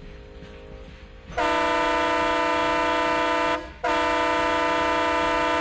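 Indian Railways locomotive horn sounding two long, steady blasts of about two seconds each, with a brief gap between them. The first starts about a second and a half in, and the second is still sounding at the end.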